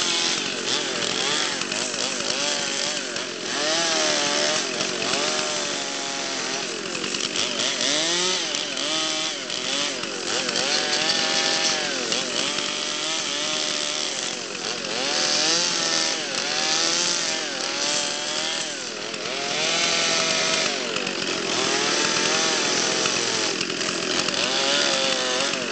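Two-stroke chainsaw carving into a log. Its engine pitch rises and falls over and over as the throttle is opened, the chain bites into the wood, and the throttle is eased off again.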